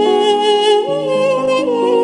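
Duduk playing a slow melody with wavering vibrato, over lower held accompanying notes that shift in steps.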